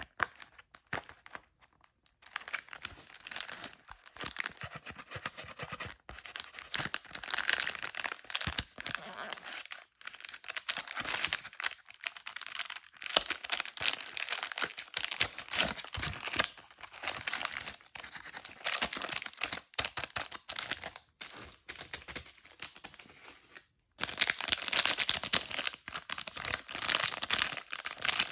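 Plastic candy wrappers crinkling and tearing as candy packets are opened, a dense run of crackles and rustles. After a sudden cut about 24 seconds in, the crinkling goes on louder and brighter.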